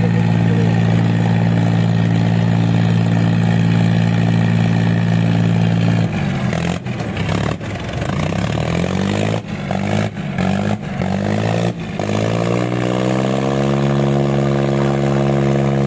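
Diesel tractor engines of an Eicher 557 and a Sonalika 750 at full throttle under heavy load in a tractor tug-of-war. The note holds steady for about six seconds, then wavers and dips several times as the engines lug, before climbing and holding steady again near the end.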